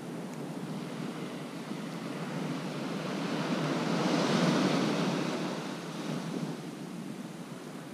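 Surf breaking on a sandy beach: a wave swells to a peak about halfway through and then washes away.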